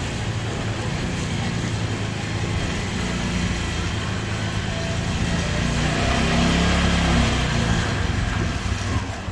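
An engine running steadily with a low hum, growing louder about six seconds in and easing off near the end.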